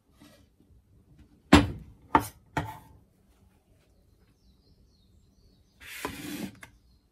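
Three sharp knocks of hard objects about half a second apart, the first the loudest, then a short rustling hiss just under a second long near the end.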